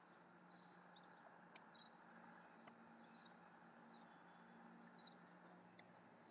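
Near silence: faint room tone with a low steady hum and a few faint clicks.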